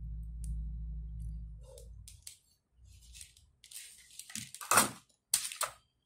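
A steady low hum for about two seconds, then a handful of sharp clicks and rustles, the loudest about five seconds in, as the soldered circuit board and tools are handled and moved on the table.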